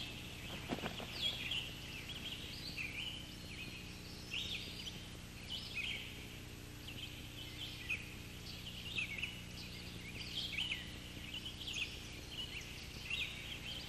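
Wild birds chirping and calling in woodland: many short, high calls overlapping throughout, over a faint low steady hum.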